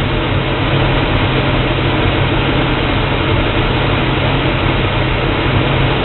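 1966–67 Chevelle engine idling steadily.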